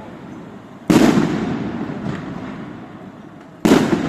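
Two loud bangs of aerial fireworks bursting, about a second in and near the end. Each is followed by a long rumbling echo that dies away, with a faint pop between them.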